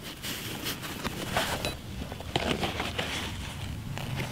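Nylon backpack being handled and opened: irregular fabric rustling with many short clicks and scrapes of buckles and straps.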